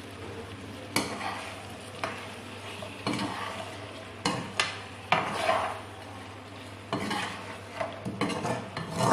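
A spoon or spatula stirring chicken and spices frying in oil in a karahi, knocking and scraping against the pan several times over a quiet, steady sizzle.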